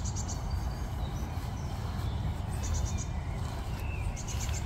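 Wind buffeting the microphone as a steady low rumble, with a small bird's short high chirps coming three times, each a quick run of about four notes.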